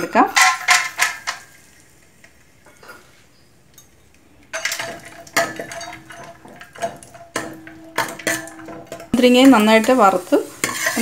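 A steel ladle scraping and clinking against a steel pot while raisins are stirred in sizzling hot fat. There is a quieter pause in the middle, and the metal-on-metal scraping turns into loud squeals near the end.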